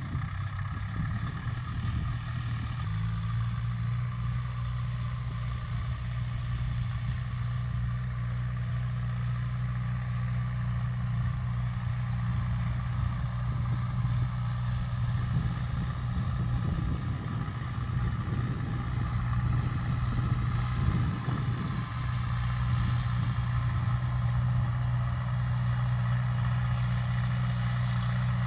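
Farm tractor's engine running steadily under load as it pulls a mounted seed drill, a low even hum that steps up slightly in pitch about three seconds in.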